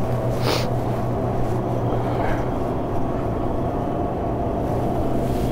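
Steady low machine hum of a small store's room tone, with a faint steady tone above it; a brief noise about half a second in.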